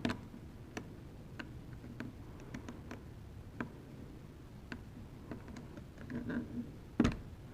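Light, irregular clicks and taps of the drone's parts being handled as its second wing is worked off, with one louder knock near the end.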